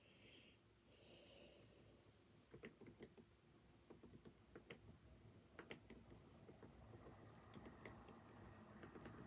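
Faint computer keyboard typing: irregular key clicks, starting about two and a half seconds in and coming several a second. A brief hiss about a second in.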